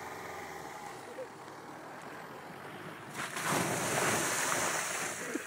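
2005 Mitsubishi L200 pickup driving past under throttle through deep snow, engine running, with its tyres throwing up snow and slush. The rushing spray swells loud about three seconds in and fades near the end.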